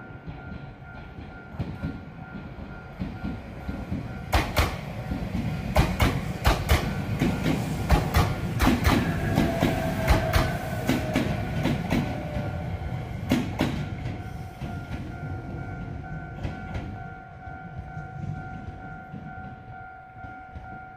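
Iyotetsu electric train passing close by: a rumble that builds and fades, with several sharp clacks of the wheels over rail joints as the cars go past. A whine falls in pitch as the train passes. A level-crossing bell rings steadily throughout.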